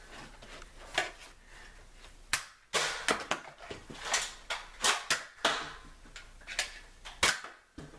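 Toy foam-dart blasters firing and darts striking surfaces: a string of irregular sharp clicks, snaps and knocks, some followed by short rasping smears.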